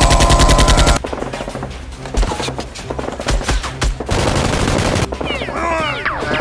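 Movie-style automatic gunfire sound effects: a fast machine-gun burst in the first second, then scattered shots and short bursts, over background music. Sliding whistling tones come in near the end.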